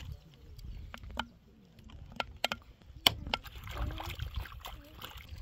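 Several separate sharp taps and knocks, about five of them, spread irregularly. The loudest comes about three seconds in.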